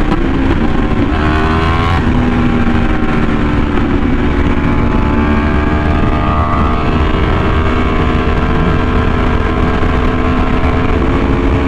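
Yamaha R1M's crossplane inline-four running hard through an SC Project exhaust at speed, with heavy wind rush on the microphone. The engine note climbs about a second in and steps down near two seconds, then holds fairly steady.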